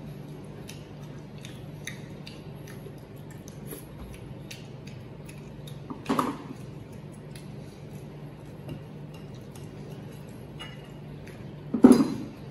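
Eating at the table: small clicks of chopsticks against a bowl and plate, with two louder mouth sounds, one about six seconds in and one near the end.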